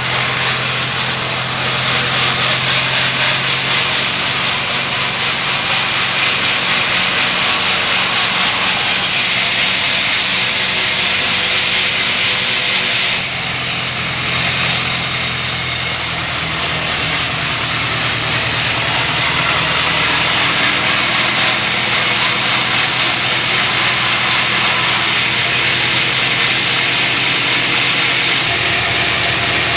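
Wood-cutting bandsaw mill running continuously: a steady low machine drone with a dense hiss of the blade sawing through timber. The tone shifts a little under halfway through and the low drone changes again near the end.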